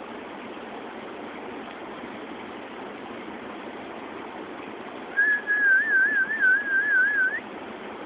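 Steady rush of river water by a waterfall. About five seconds in, a person whistles one wavering note for about two seconds, ending on a quick rising glide, to call the dogs in.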